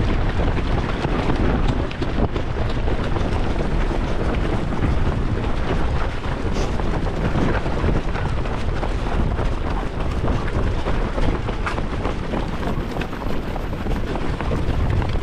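Heavy wind noise buffeting the microphone: a loud, dense, steady rumble, with faint irregular knocks through it.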